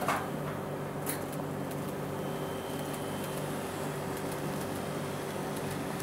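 KATO N-gauge 885-series model train running past on its track: a steady mechanical hum with a sharp click near the start and another about a second in, and a faint high whine for about a second in the middle.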